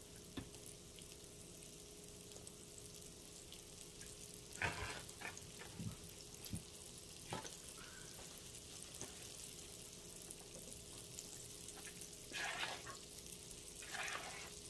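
Fish frying in oil in a skillet, a faint steady sizzle, with a few scrapes and light knocks of a spoon and bowl as the next piece is dredged in flour; the loudest knock comes about five seconds in.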